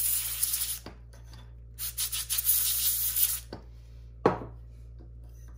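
Spray-can compressed air hissing in two bursts, drying contact cleaner off a disassembled Alps K Series fader. A single sharp knock follows about four seconds in.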